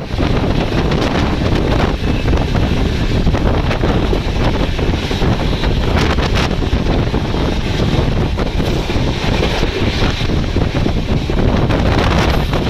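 Loud, steady rushing noise of an express train running through a station at about 110 km/h, with wind buffeting the microphone.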